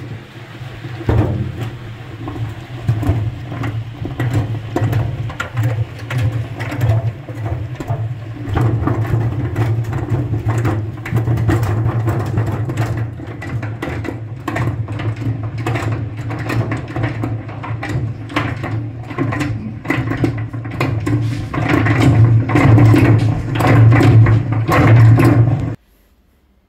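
Geared honey extractor spinning frames of honey in its galvanized drum: a steady low hum with a continuous fast clatter from the gears and the rotating basket. It grows louder towards the end, then cuts off suddenly.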